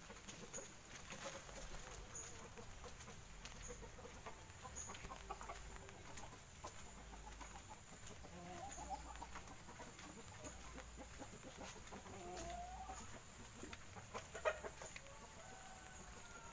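Village chickens clucking faintly now and then, with a sharper, louder cluck about two seconds before the end. Soft footsteps on a wet dirt path sound underneath.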